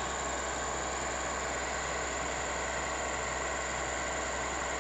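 Heavy excavator's diesel engine running steadily, with a constant even noise.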